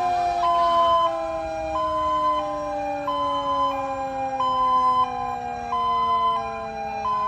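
Fire truck sirens: a hi-lo siren switching between two tones about every half second, over a second siren whose long wail falls slowly and steadily in pitch.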